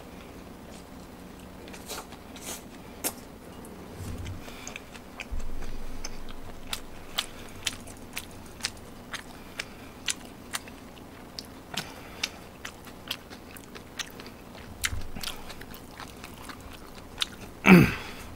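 Close-miked chewing of a mouthful of jjolmyeon, chewy spicy noodles, with wet mouth clicks and smacks about twice a second. A short loud vocal sound falling in pitch comes just before the end.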